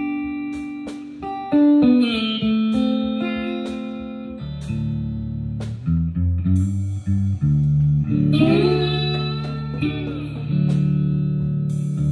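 Electric guitar played alone in held notes, dropping into a lower register about four and a half seconds in, with notes bent upward around eight to nine seconds.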